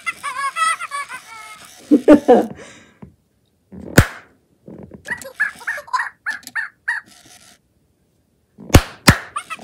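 Hand claps: one about four seconds in and two quick ones near the end. A WowWee Fingerlings baby monkey toy (2016 original) answers them in high-pitched electronic monkey chatter, including a run of about seven short chirps.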